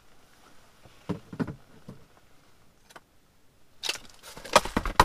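A few sharp knocks and clicks of ice-fishing gear being handled, with a louder run of clattering near the end.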